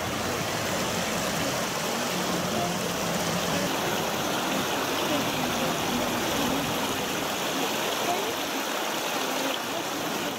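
Water spilling steadily over the saw-tooth V-notch overflow weir of a secondary clarifier, falling in many small streams and splashing into the foaming effluent channel below: a continuous, even rushing and splashing.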